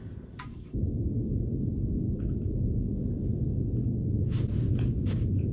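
Steady low rumble that starts abruptly about a second in and holds, with a few faint ticks near the end.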